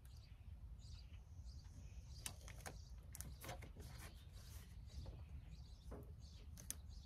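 Near-quiet background with a low rumble, broken by faint short clicks and rustles from handling a tape measure and painter's tape on the truck's fender.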